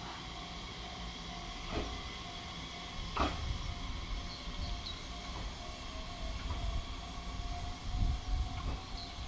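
Nishitetsu 7050 series two-car electric train: a low rumble with a few sharp clanks, the loudest about three seconds in, over steady high-pitched tones.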